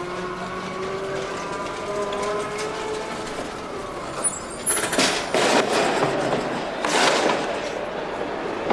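Train sounds: a pitched whine climbs steadily as it gets under way, followed about five and seven seconds in by two loud bursts of hissing noise.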